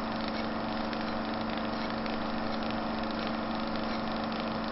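A steady engine-like drone with a constant pitched hum and a low, even pulsing, as of a motor idling.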